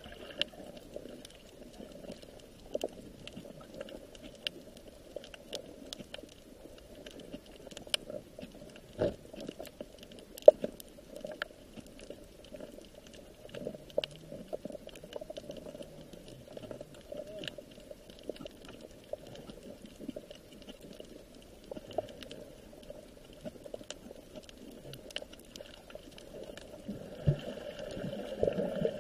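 Steady bubbling, sloshing water with many small clicks and ticks scattered through it.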